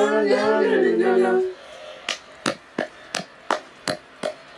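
A voice singing a wavering note for about a second and a half. It is followed by a run of sharp taps, about three a second.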